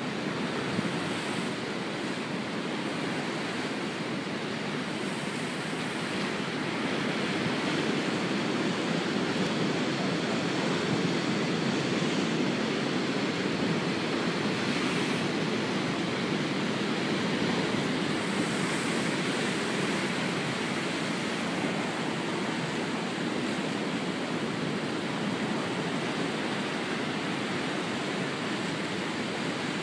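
Heavy storm surf breaking over and around a stone harbour pier: a steady rush of churning, crashing seawater that swells a little in the middle.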